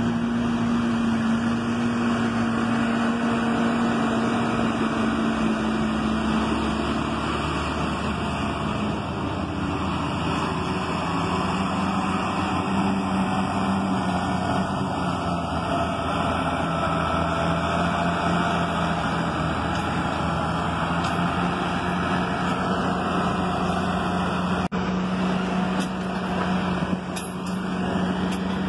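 John Deere farm tractor's diesel engine running steadily under load as it hauls a train of loaded sugarcane trailers along a dirt road. The engine note drops a little after several seconds and then holds steady.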